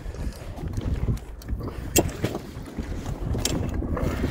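Wind buffeting the microphone in low, uneven gusts. A sharp knock about two seconds in is the loudest sound, and a second, weaker one comes about a second and a half later.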